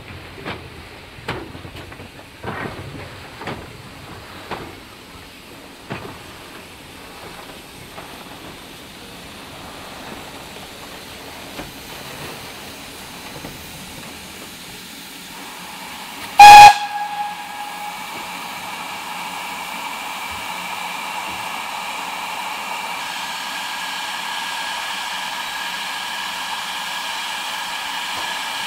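BR Standard Class 2MT 2-6-0 steam locomotive No. 78018 moving slowly, with a run of sharp knocks about a second apart for the first few seconds. About halfway through it gives one very loud, short whistle blast. Then comes a steady hiss of escaping steam with a whistling edge, growing slowly louder.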